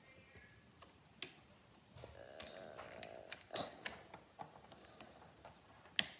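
Hard plastic parts of a Bumblebee Transformers toy ticking and clicking as they are twisted and snapped by hand. Faint scattered ticks are broken by a few sharper clicks spaced a couple of seconds apart.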